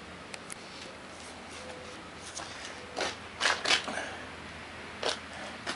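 Steady low hiss with a few short rustling scuffs about three seconds in and again near the end.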